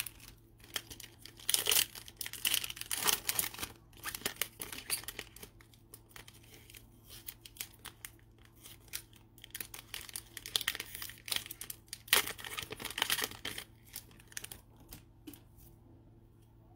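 Foil wrapper of a Panini Playoff football card pack crinkling and tearing as it is opened by gloved hands, in two busy spells about two seconds in and again around ten seconds in, with the light rustle of cards being handled between.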